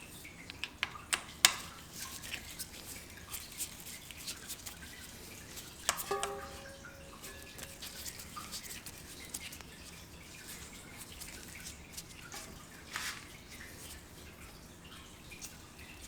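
Scattered light clicks and ticks of hands and a tool working on a SRAM GX AXS rear derailleur, with a sharper knock about six seconds in.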